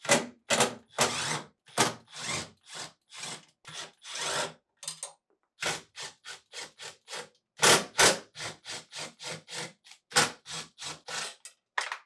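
Milwaukee M12 Fuel cordless driver with a 3/8-inch nut driver bit, running in many short bursts a few times a second as it backs out the screws holding the freezer door to its slide brackets.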